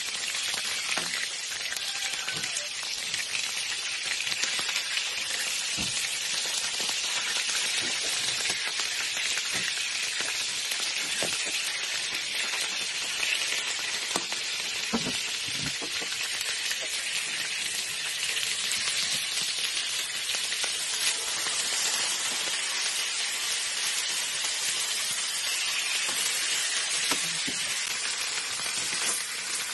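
Fish steaks sizzling as they shallow-fry in hot oil in a wok: a steady, bright hiss. A few light knocks of a metal spatula on the pan come as the pieces are turned.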